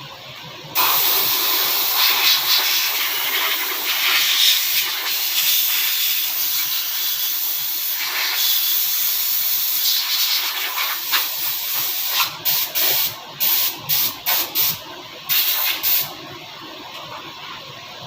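A long, steady hiss of air or spray under pressure, then a quick series of short bursts, as when a nozzle is triggered on and off.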